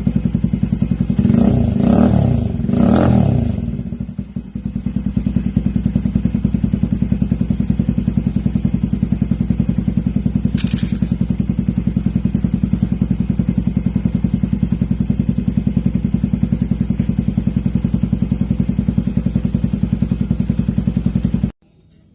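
Motorcycle with an aftermarket Yoshimura muffler idling with a steady exhaust pulse. The throttle is blipped three times in quick succession in the first few seconds, each rev rising and falling, before it settles back to idle. The sound cuts off suddenly near the end.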